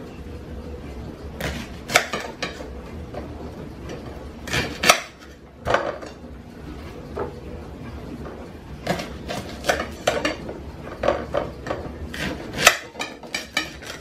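A kitchen knife cutting and handling leeks on a paper plate over a countertop: irregular taps, knocks and clicks in small clusters, with a sharp knock about two seconds in and another near five seconds.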